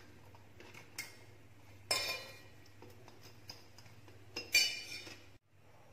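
A metal fork clinking against a stainless-steel bowl while fried gujiya are turned in sugar syrup. There are a few separate clinks, the loudest about two seconds in and about four and a half seconds in.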